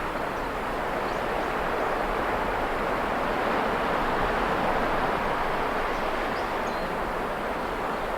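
Ocean waves washing steadily onto the shore, the surf swelling slowly and easing off again, with a few faint high chirps near the end.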